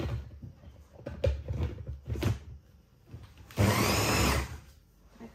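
Electric hand blender with a chopper bowl, pulsed on and off to chop frozen banana pieces with coconut milk into ice cream. There are a few short bursts, then a steadier run of about a second in the second half.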